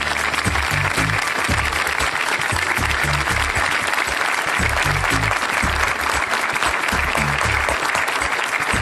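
A studio audience applauding over a television theme tune with a pulsing bass line.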